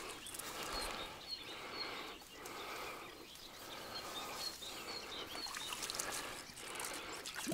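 Small birds chirping faintly, short high chirps repeating, over a quiet outdoor background hiss.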